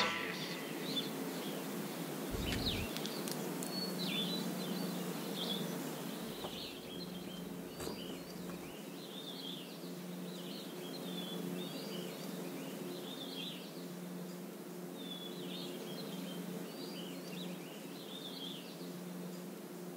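Outdoor ambience: small birds chirping in short, scattered calls over a low, steady hum.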